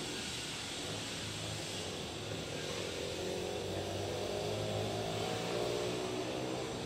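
A distant engine drone, a low steady hum under a hiss, growing louder from about two and a half seconds in.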